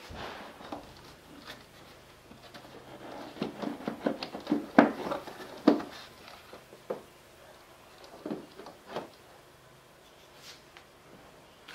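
Hard plastic clicks, knocks and rubbing as a car's air filter box and intake hose are handled and pulled loose by hand, with a flurry of sharp clacks in the middle and two more knocks later on.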